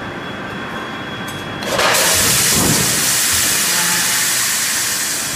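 Steady hum of the drop die forging hammer's machinery, then, about two seconds in, a sudden loud, steady hiss that runs on for over three seconds as the hot billet is set on the die.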